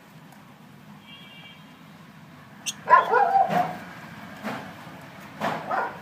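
Budgerigar chicks in the nest box giving two loud begging calls, the first about three seconds in and lasting under a second, the second shorter near the end.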